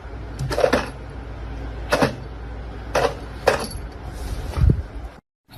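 A series of about six sharp knocks or clatters, irregularly spaced, over a low steady hum, then the sound cuts out near the end.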